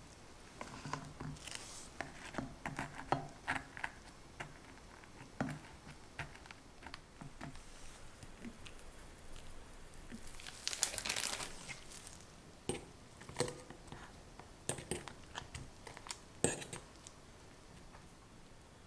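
Close-up food-handling sounds from assembling mini tiramisu: scattered light clicks and taps of a spoon against a chocolate cup as a coffee-soaked ladyfinger is set in. About halfway through comes a longer crinkling as a plastic piping bag is squeezed to pipe in mascarpone cream.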